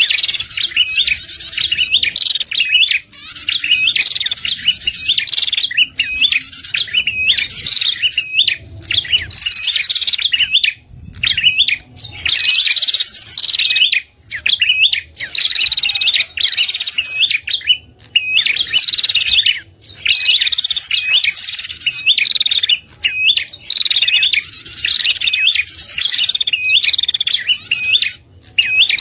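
Prenjak kepala merah song played as a lure call: fast, sharp chirping notes run together in excited phrases of a second or two, each followed by a brief pause. The phrases repeat without letup, with a harsh, buzzy layer over each one.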